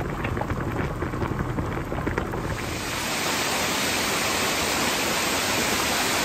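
A pan of mushrooms boiling hard, bubbling and popping; about two and a half seconds in it gives way to the steady hiss of a forest creek rushing over rock.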